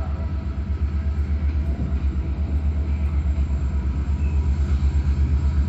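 Diesel locomotive engine of a GM class locomotive running with a steady, low rhythmic throb as the locomotive pulls into the station.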